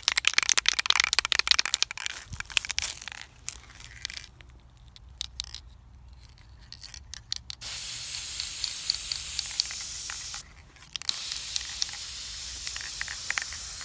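Aerosol spray paint can spraying metallic gold paint in two long steady hisses, broken by a short pause a little past the middle. Before that comes a few seconds of rapid clattering and clicking.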